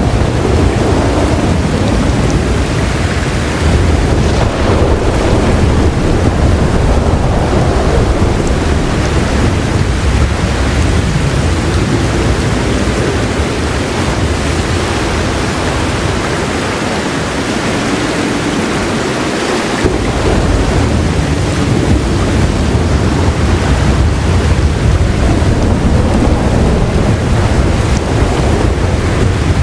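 Heavy rain falling steadily, with a continuous low rumble of soft, rolling thunder underneath. The rumble thins out for a few seconds about two-thirds of the way through, then comes back suddenly.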